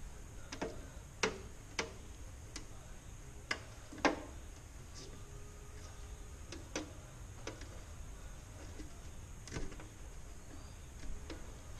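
Scattered light clicks and taps of small hard plastic parts being handled, about a dozen at irregular intervals, as a small LED lamp is fitted by hand.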